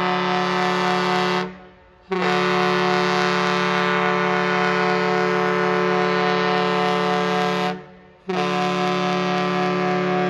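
The S.S. Badger's ship's horn sounding long blasts of its Master Salute: a steady, many-toned blast that stops about a second and a half in, a second long blast of about five and a half seconds, and a third starting about eight seconds in.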